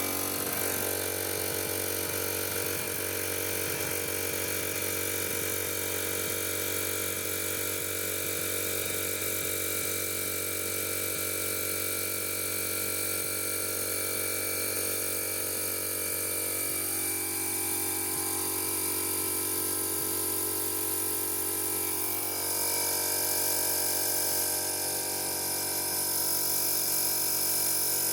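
Airmaster Tiger 8/260 air compressor running steadily, its motor and pump building pressure in the tank. The tone shifts about two thirds of the way through and grows slightly louder soon after.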